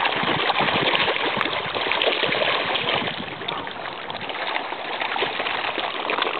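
A dense crowd of koi thrashing at the water's surface in a feeding frenzy, a continuous busy splashing and churning that eases for a couple of seconds midway and then builds again.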